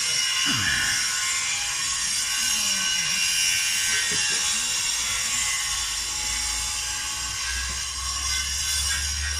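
A small motor or engine whining steadily at a high pitch, with a low rumble coming in near the end.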